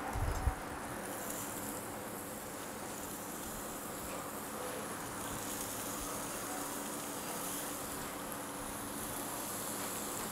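Steady buzzing hum of an induction hob and its cooling fan, with a fish fillet frying softly in oil in a stainless steel pan. A short low knock right at the start.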